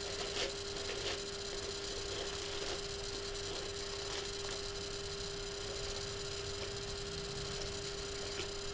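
A steady hum with hiss underneath, and a few faint short rustles of a plastic detangling brush drawn through hair in the first second or so.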